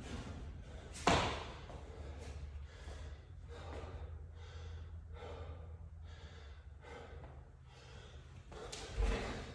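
An athlete drops from a pull-up bar and lands on a rubber gym floor with a thud about a second in. Hard, rhythmic breathing follows as he rests between sets, and there is another thump near the end.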